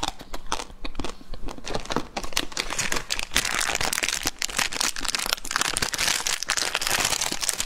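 Plastic wrapper of a mini Magnum ice cream bar crinkling and tearing as it is opened by hand.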